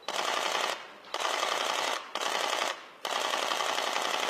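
Press cameras' shutters firing in rapid bursts: four runs of dense clicking, each under about a second long, with short pauses between them.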